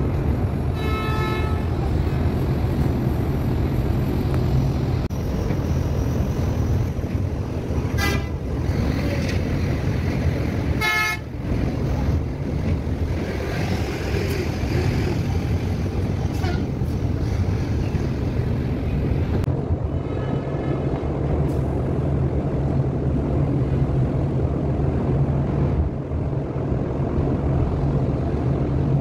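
Vehicle horns giving several short toots, the strongest around eleven seconds in and a fainter one near twenty seconds, over a steady low engine rumble.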